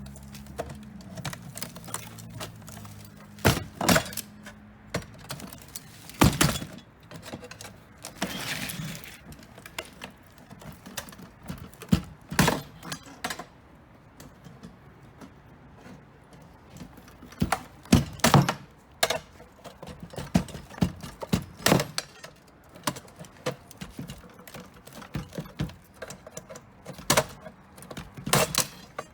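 Irregular metallic knocks and clanks of hand tools working at the steel housing of a coin payphone to break it open, with a low hum fading out about a second in.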